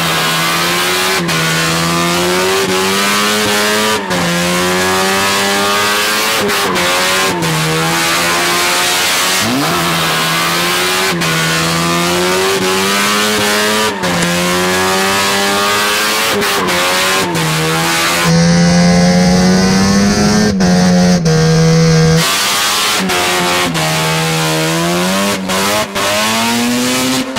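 Naturally aspirated Mazda 13B rotary engine in a Suzuki Carry kei truck revving high while drifting. Its pitch climbs and drops again every second or two as the throttle is worked, over a steady hiss of tire squeal, with a louder stretch about two-thirds of the way in.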